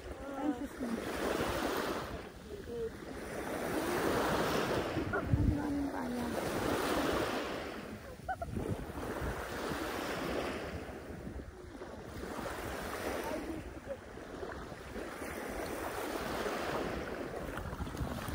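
Sea waves washing in, the surf swelling and fading every few seconds, with wind buffeting the microphone. Brief faint voices come in near the start and about five seconds in.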